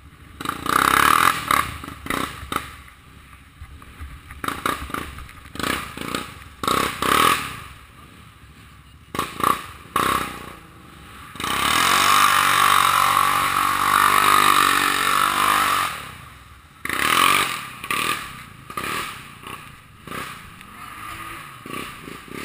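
ATV engine revving in uneven bursts as the quad churns through deep mud and water, with splashing and scraping against the machine. About halfway through, the engine is held at a long, steady high rev for several seconds before easing off.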